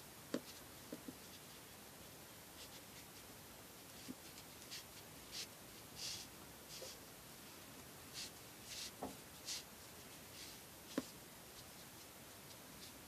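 Faint, repeated short swishes of cord being pulled and drawn through a braided knot by hand, with a few soft taps of fingers and cord, the sharpest about half a second in and near the end.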